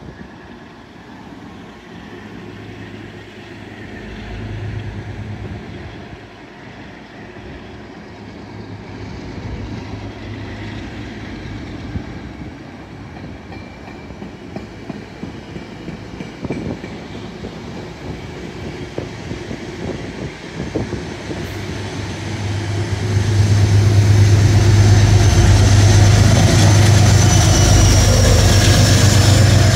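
Metro-North commuter train pulling out: coaches rolling past with wheels clicking over rail joints. About two-thirds of the way in, its P32AC-DM locomotive draws level and a loud, steady low drone takes over.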